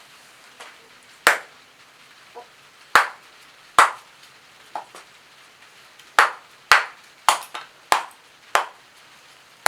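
A blade chopping into wood: about nine sharp, irregular strikes with a few lighter taps between them, as kindling is split for a small fire.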